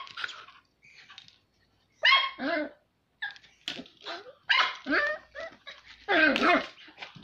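Smooth fox terrier puppy barking in short bursts of quick barks and yaps, with brief pauses between the bursts.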